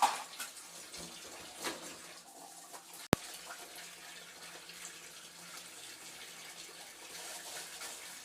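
Kitchen tap running into a sink while dishes are washed, with a few clinks of utensils in the first couple of seconds and one sharp click about three seconds in.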